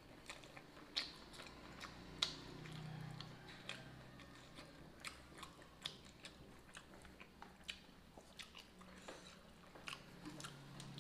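Close-up eating sounds of rice eaten by hand: chewing and lip smacks, with scattered short sharp clicks, the loudest two about one and two seconds in.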